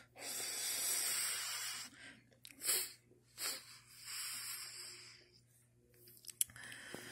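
Hissing like steam being let off, in several bursts of a second or two each, followed by a few light clicks near the end.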